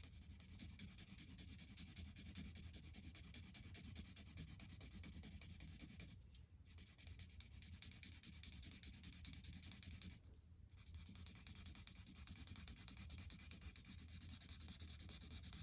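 Colouring strokes on paper: fast, faint back-and-forth scratching that fills in a shape, pausing briefly twice.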